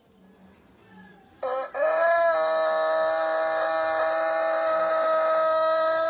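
Domestic rooster crowing one very long crow. It starts about a second and a half in, rises briefly, then holds one steady, drawn-out note that is still going at the end.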